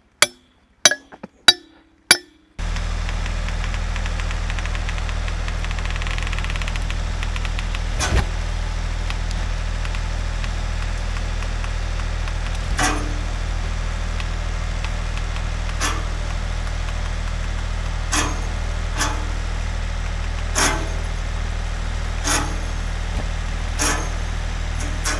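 A few sharp metallic clinks in the first couple of seconds, then the Ford 555 backhoe's engine running steadily, with a sharp clank every couple of seconds.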